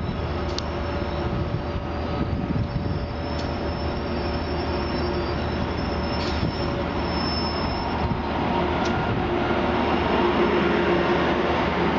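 Amtrak AEM-7 electric locomotive and its passenger cars rolling slowly into the station, a steady running noise with thin high wheel squeals, growing a little louder as the locomotive comes alongside near the end. A few sharp clicks sound through it.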